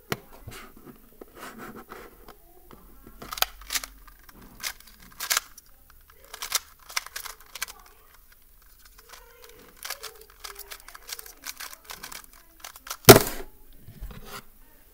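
GAN 251M magnetic 2x2 speedcube being turned fast in the hands: irregular runs of plastic clicks and clacks from the turning layers, with brief pauses. About thirteen seconds in comes one loud knock as the cube is set down and the hands come down on the stackmat timer to stop it.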